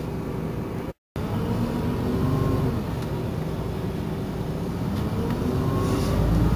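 Iveco Crossway bus diesel engine running, its note climbing in pitch twice and growing louder toward the end. The sound cuts out completely for a moment about a second in.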